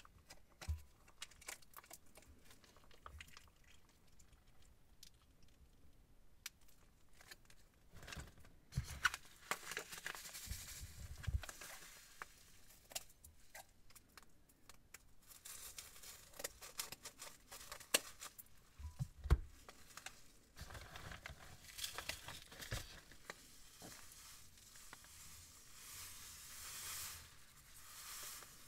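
Plastic piping bags crinkling and rustling as they are squeezed out into a glass bowl of slime ingredients, with scattered small clicks and a few soft low thumps.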